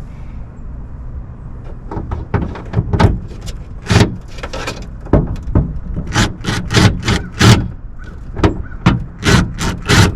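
Hand ratchet wrench working a bolt loose: a run of short, sharp clicking bursts, irregular at about two or three a second, starting about two seconds in.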